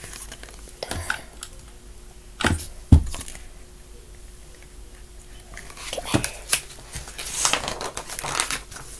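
Handling noises from a hardcover picture book being held up and moved about: a few knocks and thumps, the loudest a low thud about three seconds in, then rustling and scraping from about six seconds until near the end.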